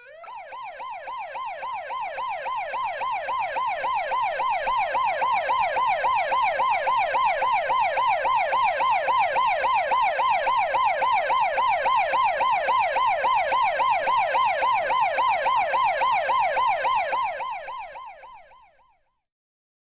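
Electronic siren: a fast, repeating rising wail, about three sweeps a second. It fades in over the first few seconds and fades out near the end.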